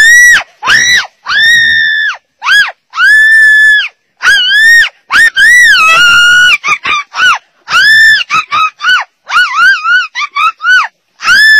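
A dog yelping and screaming over and over in loud high-pitched cries, some long and held, some short, breaking into quick wavering yelps near the end: cries of distress.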